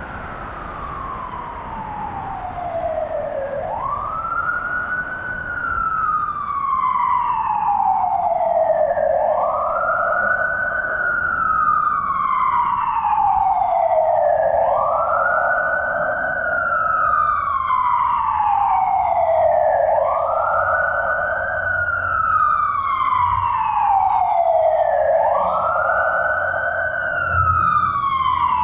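Emergency vehicle siren wailing, each cycle a quick rise in pitch followed by a slow fall, about every five and a half seconds. It grows louder over the first several seconds and stays loud, with echoes trailing each sweep.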